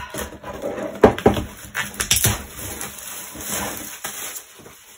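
Plastic shrink-wrap crackling and rustling as it is pulled off a cardboard jigsaw puzzle box, with a few sharp knocks of the box being handled, the loudest about a second in. It dies away near the end.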